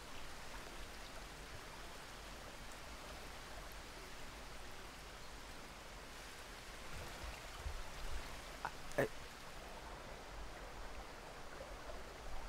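Steady outdoor background hiss, with a few low rumbles a little past the middle and one sharp click about nine seconds in.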